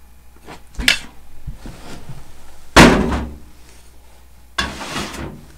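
Bowls being handled on a dining table: three separate knocks and clatters as they are set down and picked up, the loudest about three seconds in.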